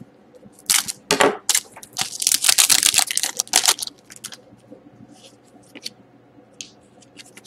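A foil trading-card pack being torn open and crinkled, in two bursts of rustling within the first four seconds. After that come light clicks and taps as the cards are slid out and handled.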